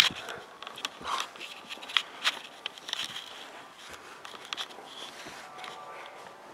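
Handling noise from a handheld camera being moved and touched: rustling and scraping, with scattered sharp clicks, the loudest right at the start and about two seconds in.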